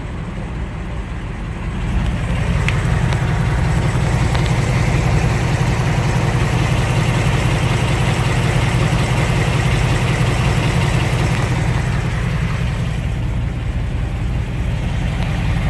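2018–2019 Ford Mustang GT's 5.0 V8 idling steadily after a fresh oil change, with no ticking heard: the 'typewriter' tick the owner listens for is absent. The engine sound grows somewhat louder about two seconds in and eases back a little near the end.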